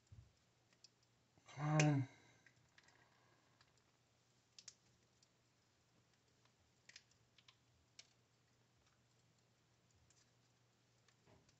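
Sparse small clicks of binding wire being untwisted and pulled off fused metal billets. About two seconds in, a man makes a short vocal sound.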